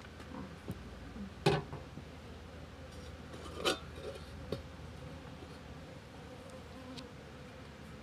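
Metal cookware clanking a few times, with a sharp clank about a second and a half in and another near four seconds, over faint insect buzzing.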